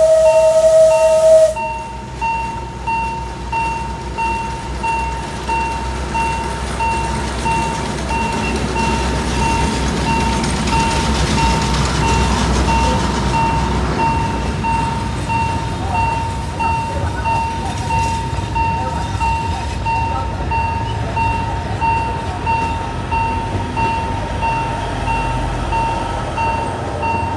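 A locomotive whistle blows and cuts off about a second and a half in. Then a level-crossing warning bell dings over and over at a steady pace, over the low rumble of a train, which swells in the middle as it passes.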